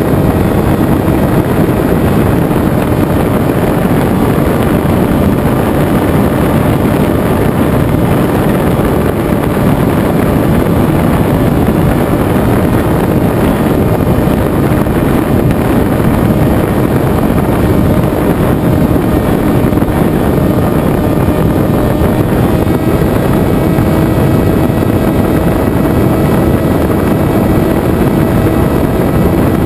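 Venturi FPV flying wing in flight: heavy wind rush over the onboard camera's microphone with the steady hum of its propeller, whose pitch steps up slightly about two-thirds of the way through.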